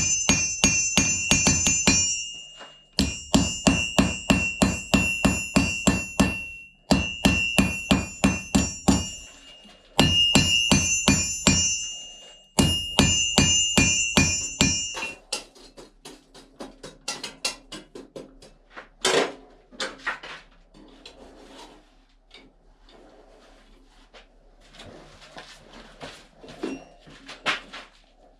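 Hammer blows on an anvil while forging a knife blade: five bursts of quick, even strikes, about three to four a second, each with a bright metallic ring. After about fifteen seconds the blows stop, giving way to softer, irregular knocks and taps with one louder knock in the middle.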